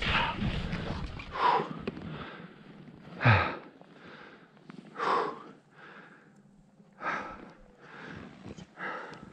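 A skier breathing hard while skiing powder, with a sharp exhale about every two seconds over the faint hiss of skis in the snow.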